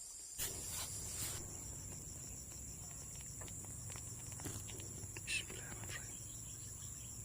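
Steady high-pitched insect chorus, over a low rumble with a few soft rustles and clicks.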